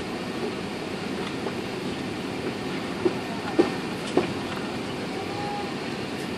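Cabin noise inside an Airbus A380 taxiing: a steady low rumble, with three short knocks about three to four seconds in.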